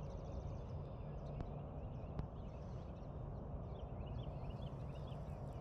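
Small birds chirping in clusters of short rising notes near the start and again toward the end, with a fast, even, high trill alongside, over a steady low rumble.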